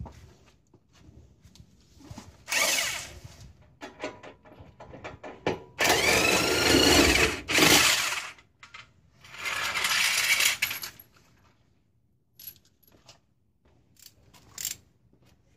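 Electric impact wrench driving the screw of a stock pantograph scissor jack to lower the car, run in three bursts: a short one, a longer one of about two seconds with the motor's pitch rising and falling, and a third. A few light metallic clinks of tools near the end.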